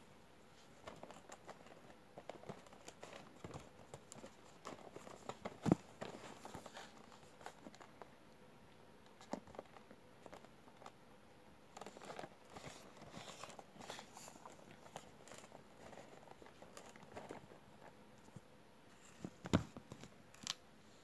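Cardboard model-aircraft box being handled: scattered faint rustles and light taps as it is picked up and turned over. There are two louder knocks, one about six seconds in and one near the end.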